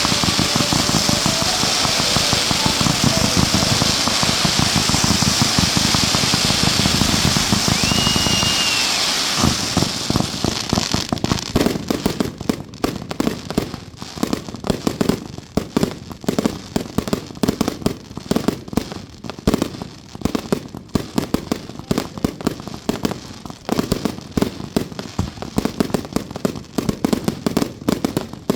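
Fireworks going off: a dense, continuous barrage with a short whistle about eight seconds in, then a long run of rapid crackling bangs, many to the second.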